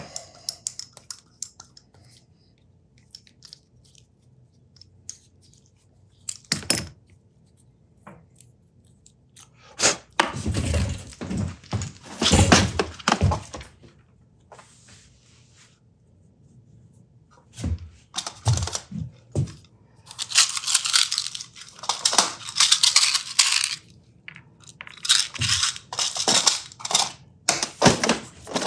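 Handling and rummaging in a plastic compartment organizer of set screws: first a few scattered small clicks, then repeated bursts of clattering and rattling of plastic and small metal screws.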